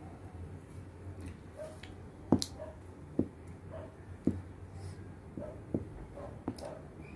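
A metal fork tapping and clinking against a plate while cutting into a whipped-cream cake: about five sharp clicks spread over the few seconds, the first the loudest, over a low steady hum.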